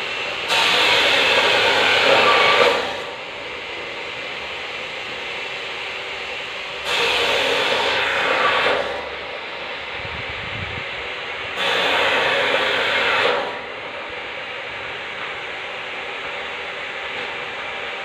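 Flock of swiftlets calling in three bursts about two seconds each, coming at fairly even intervals, over a steady hiss.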